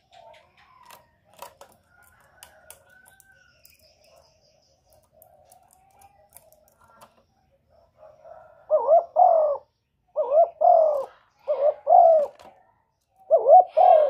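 Spotted dove cooing: a few seconds of faint soft notes and small clicks, then from about halfway in four loud phrases of paired coo notes, repeated about every one and a half seconds.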